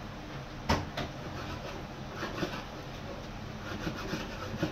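Kitchen knife cutting through a fresh salmon on a wooden cutting board: one sharp knock of the blade on the board a little under a second in, then quieter scraping and small taps. The knife has gone a bit dull.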